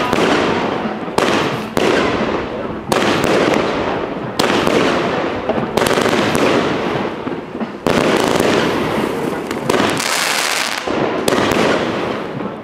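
A 500-gram, 39-shot Rubro 'Asian Sensation' firework cake of mixed calibres firing shot after shot: about nine sharp bangs, roughly one every second or so. Each bang trails off in a fading hiss as the shell bursts.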